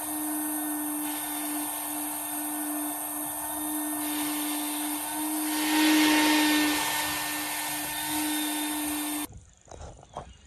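Electric power sander running steadily on the wooden deck, a constant motor hum under a gritty hiss that grows louder for a moment around the middle and cuts off suddenly near the end.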